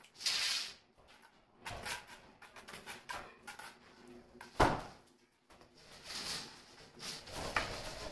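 Steel trowel scraping and slapping wet cement mortar onto the top of a block wall: a run of short rasping scrapes, with a sharp knock about halfway through as the loudest sound.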